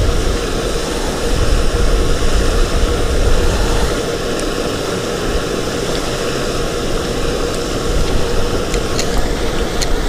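Wind buffeting the microphone: a loud, steady rushing rumble that rises and falls, with a steady hum underneath and a few light clicks near the end.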